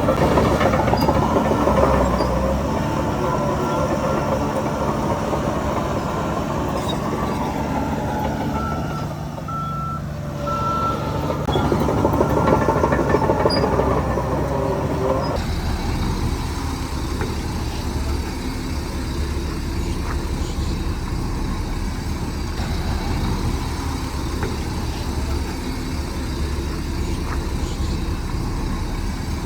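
Heavy earthmoving machinery, a bulldozer and dump trucks, working with diesel engines running steadily. A reversing alarm beeps about once a second for a few seconds about a third of the way in.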